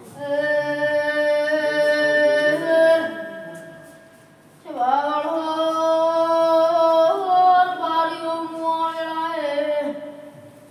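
A boy's high solo voice singing a devotional folk song unaccompanied, in long held notes that step slowly in pitch. There are two phrases, with a short breath about four seconds in.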